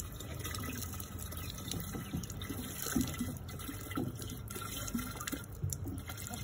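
Water poured from a watering can into the hole in a plastic bucket's lid, topping up a chicken waterer, with small irregular splashes.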